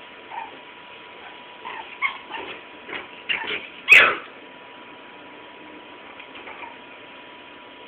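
Small dogs play-fighting, a shih-tzu among them, giving short yips and whines in a quick string, with a sharp knock about four seconds in, the loudest sound. The sounds are play, not a real fight.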